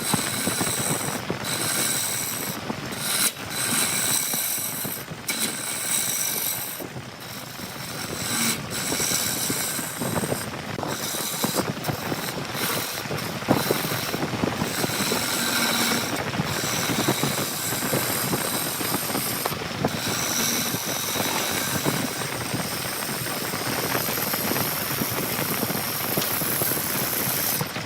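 Woodworking machinery at work on wood: a steady, dense rattling mechanical noise with a few brief dips.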